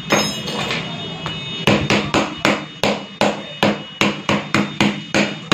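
Metal hand tool repeatedly stabbing the cracked glass screen of an Oppo A5s phone, sharp knocks on the glass. A few spaced blows come first, then a quick run of about four or five a second from about two seconds in.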